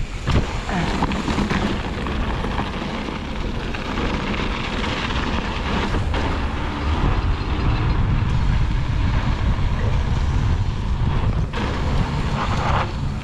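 Wind rushing over a helmet-mounted action camera's microphone, with the rattling rumble of a mountain bike rolling fast over a dirt trail.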